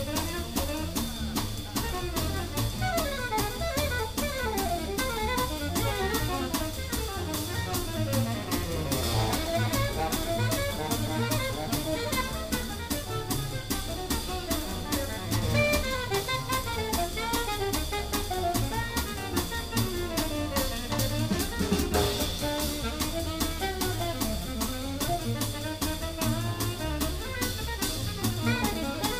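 Small-group jazz played live: a drum kit keeping time with a steady, even ride-cymbal pattern under a fast melodic horn solo.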